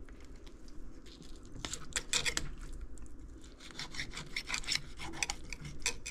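Knife sawing and scraping along a channel catfish's rib cage and backbone on a plastic cutting board, in irregular strokes that come in a cluster about two seconds in and again from about four to five seconds in.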